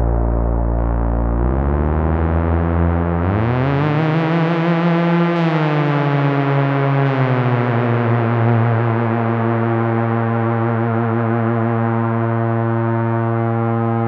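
Korg ARP 2600 analog synthesizer playing its brassy Trombone/Tuba patch: low, sustained notes, with a smooth upward slide in pitch a few seconds in that eases back down, then long held notes.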